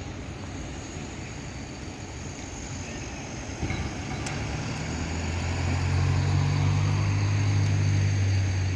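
A vehicle engine running with a low hum that grows louder from about halfway and eases off near the end, with a short click shortly before it swells.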